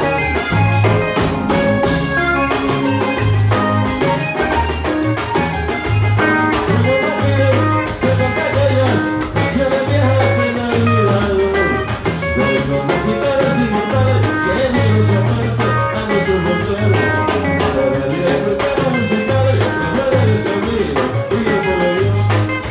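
Music by a regional Mexican conjunto band, with drums and a steady bass line under melodic instrument lines.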